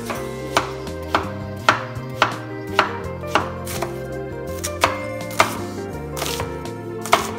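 Chef's knife chopping vegetables (potato, then onion) on a wooden cutting board: sharp knocks of the blade on the board, about two a second, with background music underneath.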